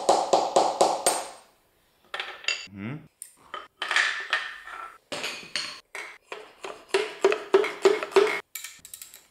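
Quick runs of light metallic taps and clinks on a small-block Chevy connecting rod cap as it is knocked loose from the crankshaft journal, about four strikes a second. The runs come in the first second and again about seven seconds in, with scattered clinks between.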